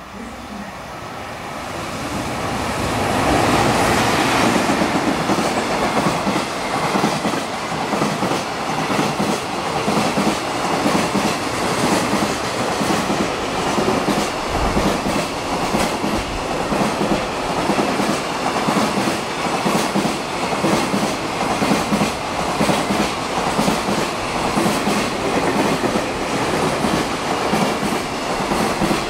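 Freight wagons behind an EF210 electric locomotive passing, their wheels clattering over rail joints. The noise builds over the first few seconds, then holds as a steady, dense clickety-clack.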